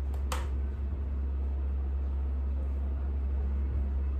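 Steady low electrical hum with a faint hiss, the recording's background noise, broken by a short click about a quarter second in.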